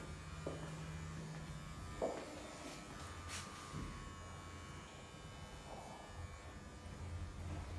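A low, steady hum in a small room. A second low tone drops out about two seconds in, and a few soft knocks come at about half a second and two seconds in.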